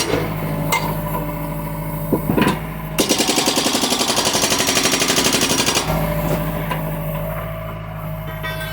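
John Deere excavator's diesel engine running, with a few metallic clanks in the first seconds and a fast, loud clattering from about three to six seconds in.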